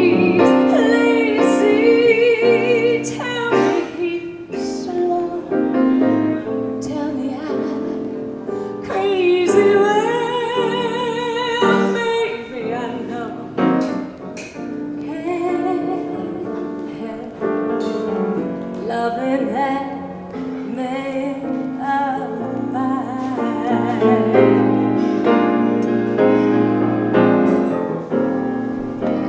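Music: a woman singing in an operatic style with wide vibrato over piano accompaniment.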